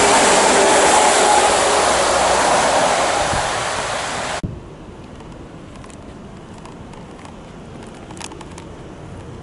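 DAF XF tractor-trailer driving past close by, with engine and tyre noise that fades as it pulls away. It cuts off abruptly about four and a half seconds in, leaving a much quieter outdoor background with a few faint clicks.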